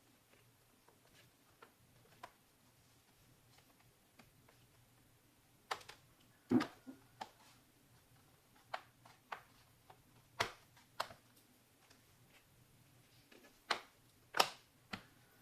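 Irregular light clicks and taps, faint at first and louder and more frequent from about halfway, of small hard parts and a tool being handled on a laptop during a RAM and SSD upgrade.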